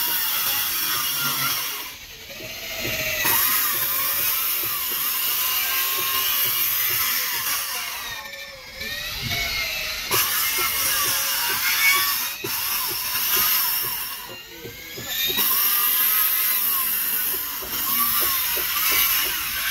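Handheld electric circular saw cutting through a thick wooden plank, a sustained high whine that eases off briefly three times.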